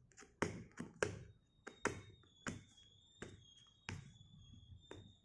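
A small gift box being opened by hand: a string of sharp clicks and taps, about eight in five seconds, as the packaging is handled and pried open.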